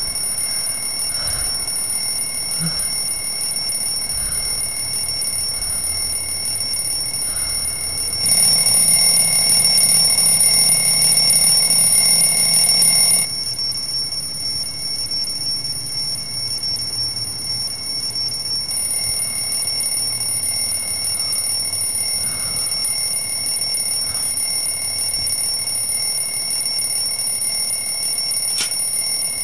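Alarm clock ringing continuously with a steady, shrill high tone. It grows louder for several seconds about a third of the way in, then drops back and goes on ringing.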